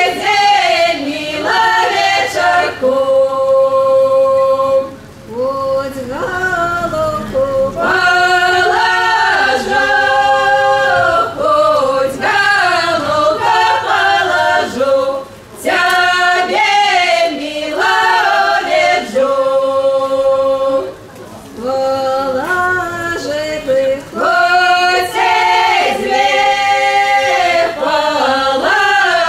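A folk vocal ensemble singing in several voices, seemingly unaccompanied, in phrases of long held notes with short breaks for breath between them.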